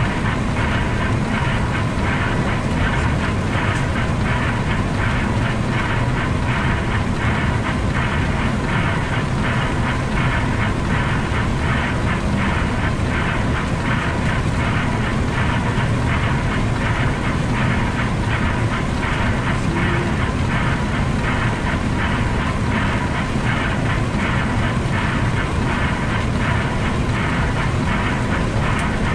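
Steady rushing flight-deck noise of an Embraer 175 jet on approach: airflow and engines, with rain on the windshield and the wipers running.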